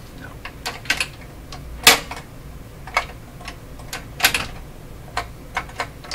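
Irregular light clicks and taps of small parts and a tool being worked on a Bang & Olufsen Beocord 2000 De Luxe reel-to-reel tape recorder. There is a sharper knock about two seconds in and another a little past four seconds.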